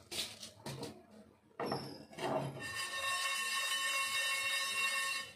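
A spatula scrapes and taps whole spices in a dry nonstick pan. About two and a half seconds in, a steady high whistle of several tones starts and runs for about two and a half seconds, louder than anything else.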